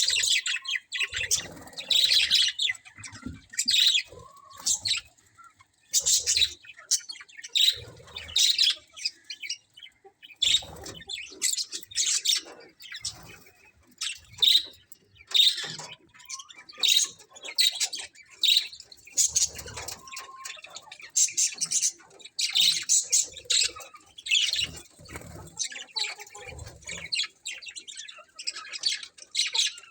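A flock of budgerigars chirping and chattering in quick, irregular runs of short high chirps, with the odd squawk.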